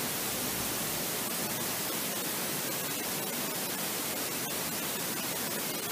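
Steady hiss of static or recording noise, with a few faint ticks in the second half.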